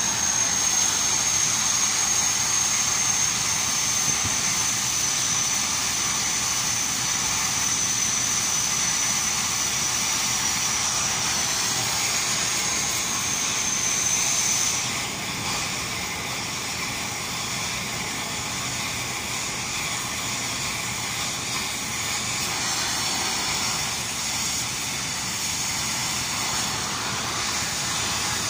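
Stick-welding arc on a cast iron flange, run with a 2.6 mm cast-iron electrode: a steady frying hiss. A thin, high, steady whine runs alongside it and stops about halfway.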